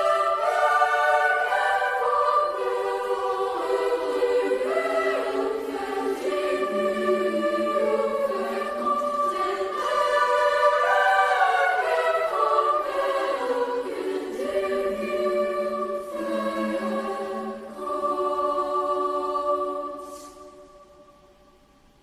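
Girls' choir singing a slow passage in several voice parts, moving through sustained chords. Near the end it holds a final chord, releases it with a crisp closing consonant, and the hall's reverberation dies away.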